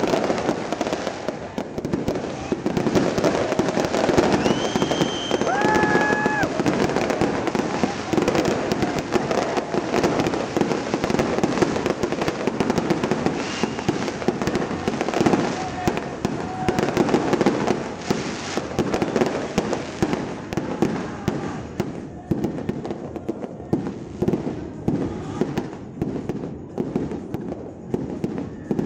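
Fireworks display: a dense, rapid barrage of booming bursts and crackling, with a few short whistles, thinning to sparser separate bangs after about twenty seconds.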